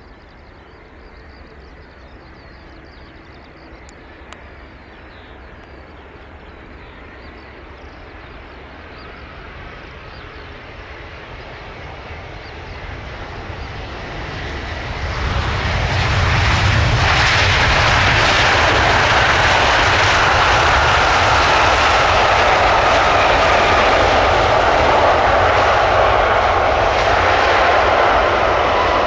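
Airbus A350's Rolls-Royce Trent XWB engines on landing. A faint jet noise grows slowly over the first half. About halfway, just after touchdown, it jumps to a loud steady roar as reverse thrust is applied, with a whine that slowly falls in pitch as the engines spool down.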